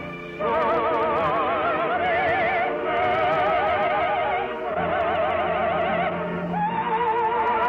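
Orchestral music: a slow melody of long held notes with a wide vibrato, moving to a new note every second or so after a brief dip at the start.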